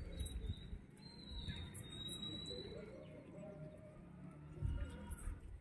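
Faint sounds of a flock of domestic pigeons feeding, with soft low cooing in the middle and thin high bird chirps over a low irregular rumble.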